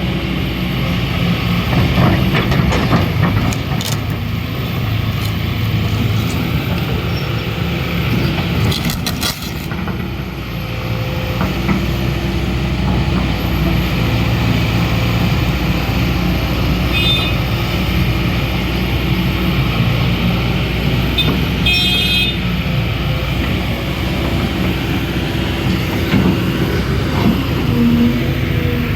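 Diesel engine of a Kobelco SK220 XDLC crawler excavator running steadily, with a few short clicks and clinks over it.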